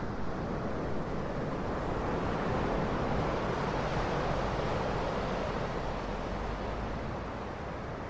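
Ocean waves washing in as a steady rush of surf, one swell building to its loudest about halfway through and then easing back.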